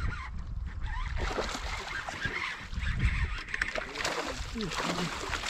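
Water splashing as a hooked bass fights at the surface near the kayak, with a few short honk-like calls about four seconds in.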